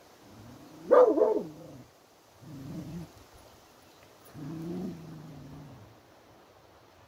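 Beagle barking in three drawn-out calls: a loud one about a second in that rises and falls, a short lower one, then a longer low call held steady just past the middle.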